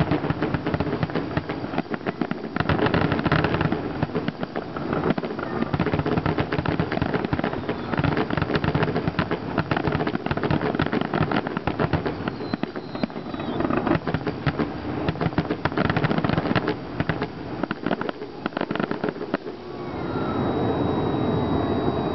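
Fireworks finale: a dense, rapid barrage of aerial shell bursts and crackle, coming in waves. About twenty seconds in the bursts stop and the crowd cheers.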